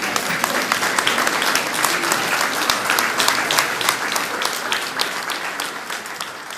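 Audience applauding, a dense patter of many clapping hands that fades away near the end.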